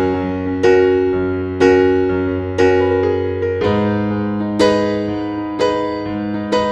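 Background music: a gentle electric piano playing chords struck about once a second, each fading away, over sustained bass notes.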